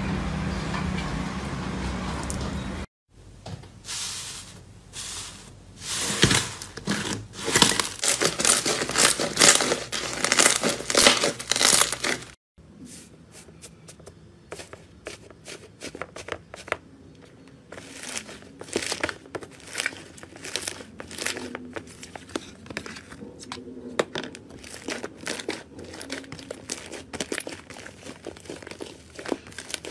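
Slime being squeezed and pressed by hand: dense, loud crackling and crinkling for about the first twelve seconds, then suddenly quieter scattered fine crackles and pops as foamy slime is pressed.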